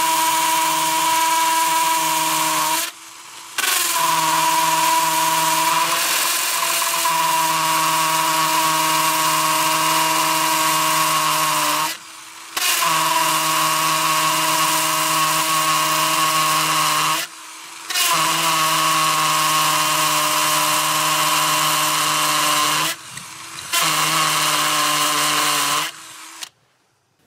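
JCB 21-18CD 18 V cordless combi drill running at a steady speed in long drilling runs, with four short stops of about half a second to a second. It winds down and stops near the end.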